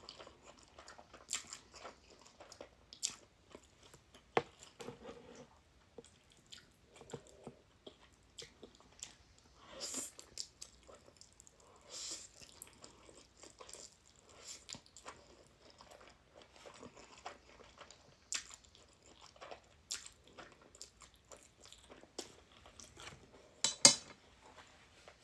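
A person chewing a large mouthful of food, with many small irregular wet clicks and crunches, and a louder sharp click near the end.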